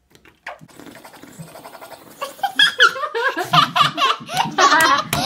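Children laughing, faint at first and then loud, bubbly giggling from about two seconds in.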